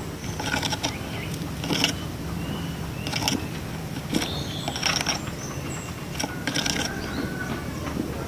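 Cinereous tit (gelatik batu) calling: a series of short, sharp high 'wucit' calls with a few brief whistled notes, over a steady low hum.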